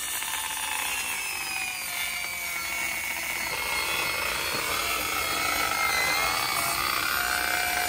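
Cordless circular saw running as it cuts through fabric-faced rigid fiberglass insulation board, with a steady motor whine whose pitch sags and recovers as the blade works through the material. The fabric's fibres catch in the blade and jam up the saw.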